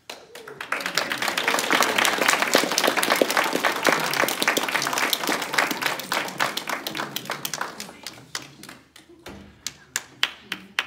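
Audience applauding: the clapping builds quickly and holds thick for several seconds, then thins out to scattered claps near the end.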